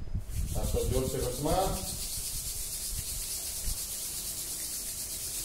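A short untranscribed voice phrase early on, then a steady scratchy hiss.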